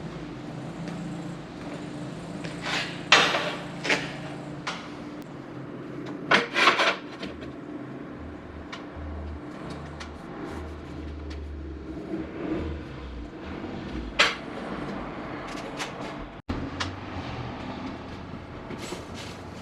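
Irregular sharp knocks and clanks, loudest about three and six and a half seconds in, over a steady low hum.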